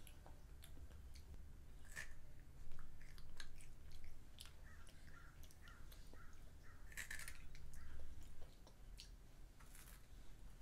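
Faint chewing and crunching of a small child eating sweets, with scattered small clicks and mouth sounds.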